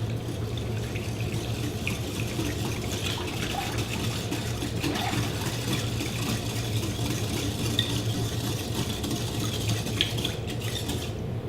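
Wire whisk stirring a thin liquid sauce in a bowl: a steady swishing of liquid.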